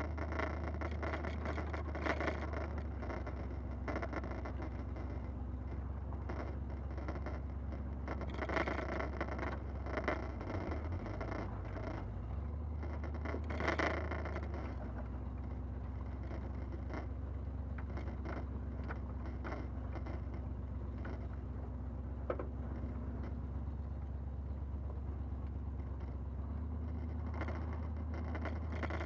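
Jeep engine running at crawling speed, its low drone shifting pitch a few times, with scattered knocks and rattles as it drives over a rocky trail, the loudest about 14 seconds in.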